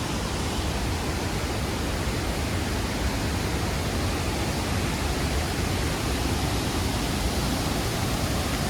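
Steady rushing of Tirathgarh Waterfall's falling water, heard close to its foot.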